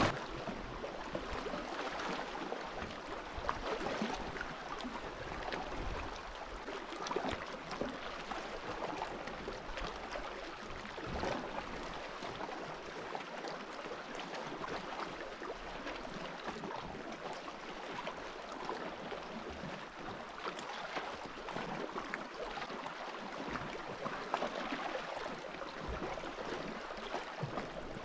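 Lake water lapping and splashing gently, a steady wash of small irregular splashes.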